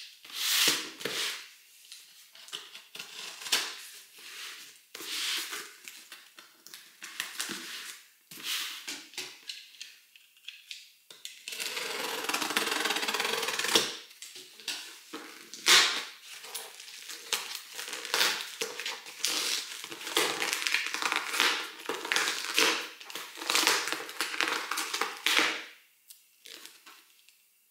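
Packing tape being picked at, scratched and peeled off a cardboard shipping box, in irregular scraping and ripping strokes. There is a longer, steadier peel about twelve seconds in, and the tape is very sticky.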